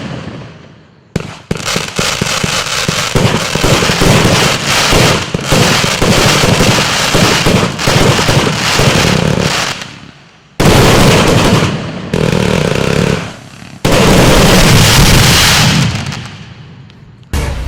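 A 144-shot compound firework cake firing: a dense run of rapid shots with bursts and crackle for most of the first ten seconds, then two heavy salvos, about ten and fourteen seconds in, that each die away over a few seconds.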